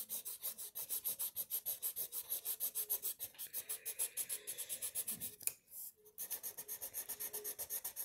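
Colored pencil scratching on paper in quick back-and-forth shading strokes, about seven a second, with a short break about five and a half seconds in.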